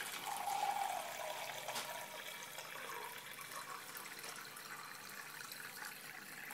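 Bottled spring water being poured into a small plastic Sea-Monkeys tank, loudest in the first second or so and then easing off.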